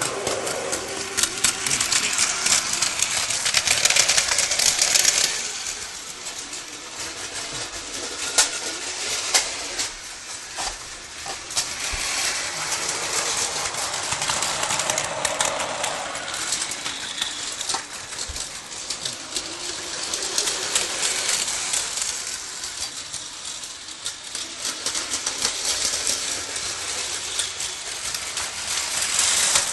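Battery-powered plastic toy trains running along plastic track, a continuous clicking, rattling clatter of motor gears and wheels on the rails. It is loudest for the first few seconds, as a train comes through the tunnel toward the phone, then goes on more quietly.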